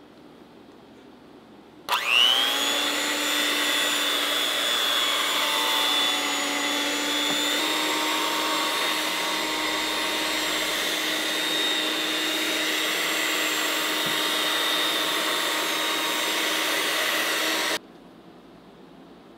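Electric kitchen mixer motor switching on, its whine rising as it spins up, then running steadily at high speed with a high whine over a lower hum, and cutting off abruptly near the end.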